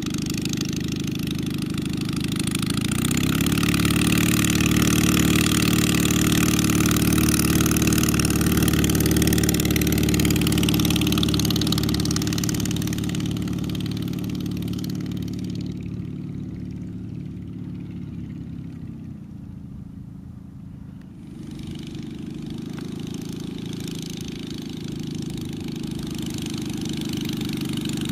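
Small homebuilt light aircraft's piston engine and propeller running while it taxis. The engine speeds up about three seconds in, runs loud, eases off and drops to a low idle around twenty seconds in, then picks up again.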